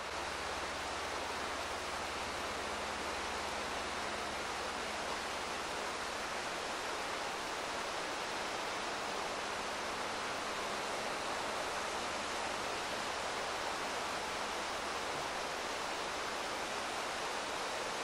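Steady rushing of a mountain river running over rocks: an even, unbroken hiss. A faint low hum lies underneath and fades out about six seconds in.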